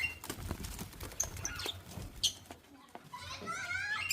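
Quail giving a few short high chirps, with wing flutters and scattered knocks.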